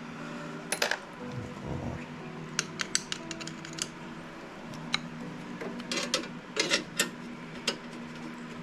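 Sharp metallic clicks and clinks from hand tools and small engine parts being handled, in irregular clusters, over steady background music.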